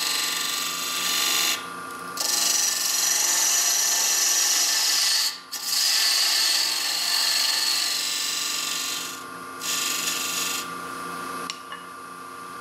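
Hand-held turning tool cutting into a spinning wooden tenon on a lathe: a steady hiss of the cut, breaking off briefly three times as the tool is eased back, over the lathe's steady running hum. The cutting stops about ten and a half seconds in.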